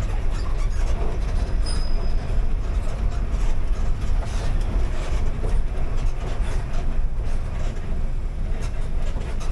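A bus on the move: steady low engine and road rumble with scattered rattles and knocks from the body.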